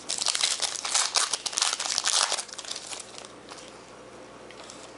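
Crinkling and rustling of a foil trading-card pack wrapper being handled and torn, dense for about two and a half seconds and then dying down to quiet handling.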